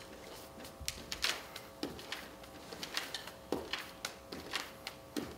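Light taps, about two a second and uneven, of hands patting the shoulders and being set back down on a hardwood floor during plank shoulder taps.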